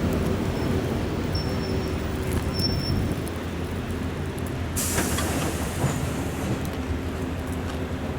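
ER2K electric multiple unit train running with a steady low rumble of wheels and traction gear. A sudden hiss about five seconds in lasts under two seconds.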